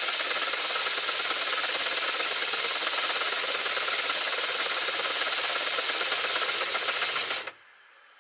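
Gauge 1 model three-cylinder locomotive chassis running on compressed air: a loud, steady rush of air exhausting through the cylinders as the motion and Gresley conjugated valve gear turn over. The air stops suddenly about seven and a half seconds in.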